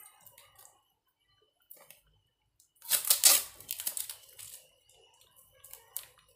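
Brass ankle bells on red cloth pads jingling and rattling as they are handled and set down in a box, with a loud burst of jingling about three seconds in and a few lighter clinks near the end.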